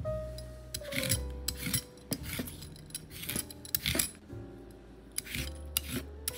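Y-shaped vegetable peeler scraping strips of skin off a cucumber in quick repeated strokes, two or three a second, starting just under a second in, with a short pause about two-thirds of the way through.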